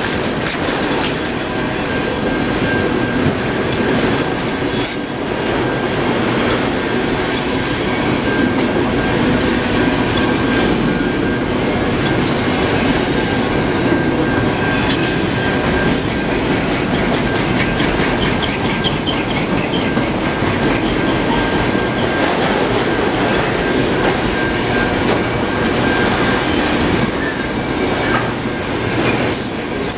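Freight train auto-rack cars rolling past close by: a steady rumble of steel wheels on rail. A thin, steady high squeal runs through it, with scattered sharp clicks and clanks from the wheels and couplers.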